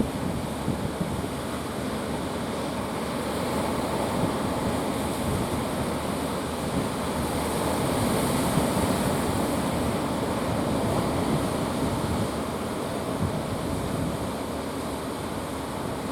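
Sea surf and wind buffeting the microphone, making a steady rushing noise with gusty low rumbles.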